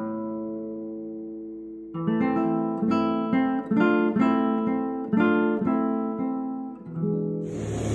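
Background music on acoustic guitar: a chord rings and fades, then strummed chords in a steady rhythm start about two seconds in. Near the end the music gives way to a steady rushing noise with a low hum.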